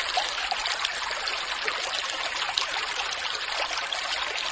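Animated logo-intro sound effect: a steady, dense hiss speckled with many tiny crackles, like countless small particles fizzing, that starts and cuts off abruptly.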